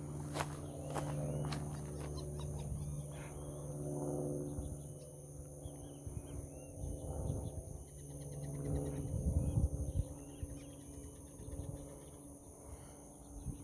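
Small birds chirping in short, repeated calls over a steady high buzz of insects, with rustling and low thumps of movement, loudest about nine seconds in.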